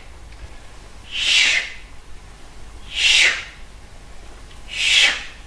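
Rhythmic swishing of scythes mowing grass: three long hissing swishes about two seconds apart, each falling slightly in pitch.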